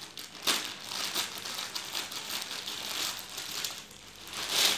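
Plastic courier mailer bag crinkling and rustling as it is pulled open by hand, with louder crackles about half a second in and near the end.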